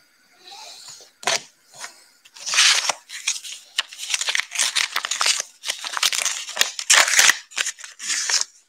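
Trading cards in clear plastic holders being handled and swapped close to the microphone: a single click about a second in, then dense, scratchy rustling and scraping of plastic.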